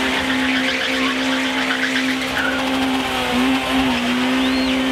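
Car engine held at steady high revs as the car spins in circles, its tyres spinning on the tarmac; the revs waver and dip briefly about three and a half seconds in.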